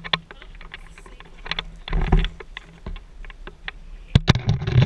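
Microwave oven running with a low hum, over irregular sharp snaps and buzzing bursts of crackle: electrical arcing around a metal halide bulb inside the oven.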